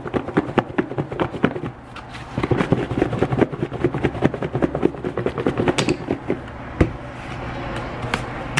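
Raw chicken wings being shaken in flour inside a covered plastic container: rapid, uneven knocking and rattling of the pieces against the container's walls, easing off near the end.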